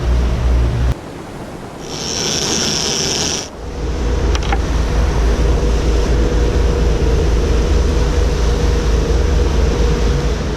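Motorboat engine running underway with a steady low drone. It drops away abruptly about a second in, gives way to a stretch of hiss, then returns about three and a half seconds in.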